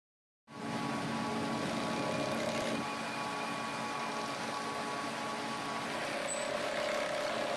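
DN-2HS (GKN-2HS) high-speed bag sewing machine, single-needle double-thread chain stitch, running steadily and stitching sheet material, with a steady motor hum. It cuts in abruptly about half a second in.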